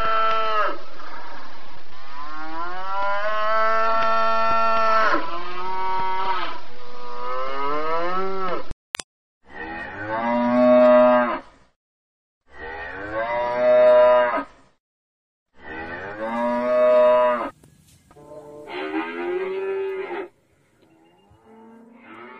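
Cows mooing: long, drawn-out moos run back to back for the first several seconds. After a sharp click near the middle come five separate moos about two seconds each with short pauses between them, the last one fainter.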